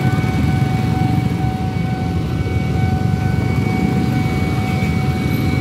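Many motorcycle engines idling together in a dense, steady low rumble, with a steady high electronic tone from the railway crossing's warning alarm sounding over it.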